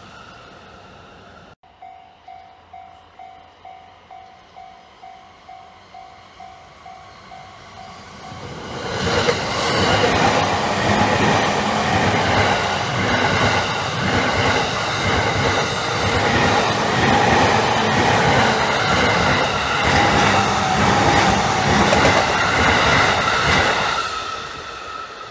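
Japanese level-crossing warning bell ringing in a steady two-tone ding about twice a second. About eight seconds in, a Takasaki Line electric train passes over the crossing for around fifteen seconds, its wheels clattering over the rail joints, then dies away near the end.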